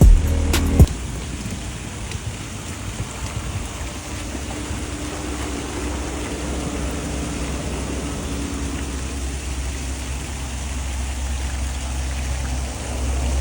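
Steady rushing water noise with a low rumble underneath; two sharp knocks in the first second.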